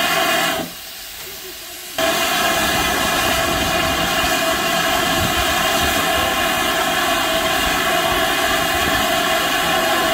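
Steam hissing steadily from a standing GWR Saint-class steam locomotive, No. 2999. The hiss drops away briefly about a second in, then comes back as loud as before.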